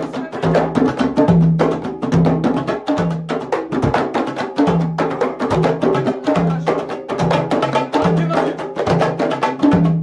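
Several hand drums played together in a fast, steady rhythm: many quick slaps over a low drum note that repeats a little faster than once a second.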